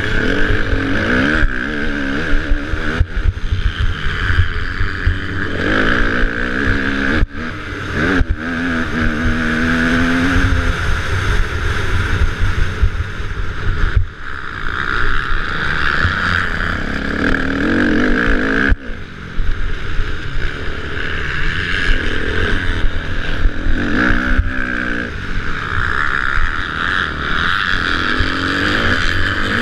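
Onboard Kawasaki off-road race engine revving hard, its pitch climbing and falling as the throttle works through the corners, with brief drops at about 7, 14 and 19 seconds in. Heavy wind rumble on the camera microphone underneath.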